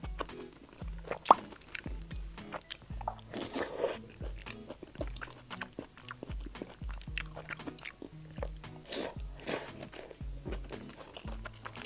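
Close-miked wet chewing and lip smacking of soft, sauce-covered fried eggplant from a skewer, with sharp mouth clicks and two short louder hissy bursts about three and a half and nine seconds in. Background music with a steady bass beat runs underneath.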